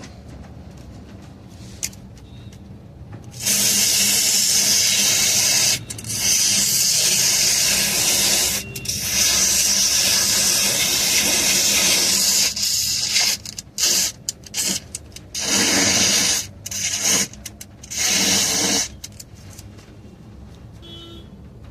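Aerosol can of foaming car AC coil cleaner spraying in long hissing bursts, then in several short squirts before stopping.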